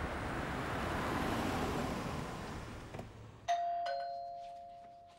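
A car pulls up with a steady rushing noise that fades out about three seconds in. Then a doorbell chimes ding-dong, two falling tones, ringing on and dying away slowly.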